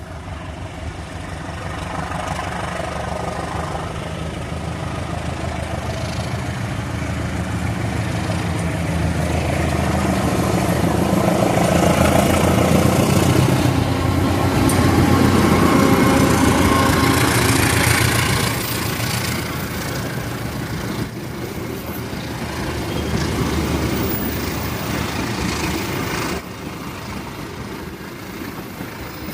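Diesel locomotive of the Dhoho train running with a deep engine rumble. It grows louder toward the middle and then eases off, while it puts out thick exhaust smoke.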